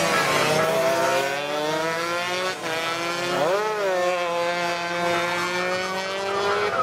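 Two-stroke underbone racing motorcycles at high revs, several engine notes gliding up and down as the bikes accelerate and back off through the corners. About three and a half seconds in, one engine revs sharply up and drops back.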